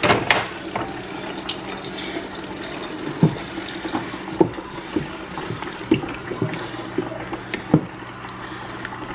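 Blended tomato mixture pouring from a plastic jug into a stainless steel pot of onions in hot oil, over a steady hiss. It is then stirred with a spoon that knocks against the pot a few times.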